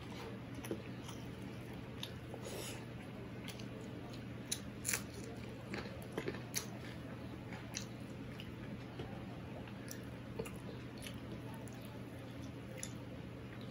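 A person eating rice by hand, heard close up: chewing and lip smacks, with fingers mixing rice on a steel plate. Scattered soft clicks, a few sharper ones about five and six seconds in, over a steady low hum.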